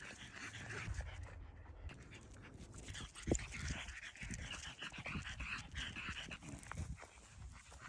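A dog panting steadily, with a single thump about three seconds in.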